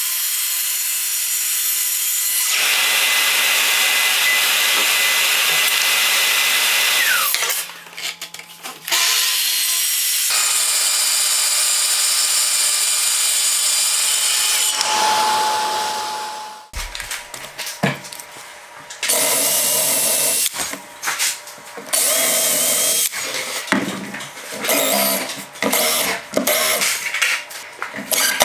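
Festool plunge-cut track saw running and cutting sheet material along its guide rail, two long cuts, each ending as the motor spins down. After that, a cordless drill/driver in short stop-start bursts driving screws.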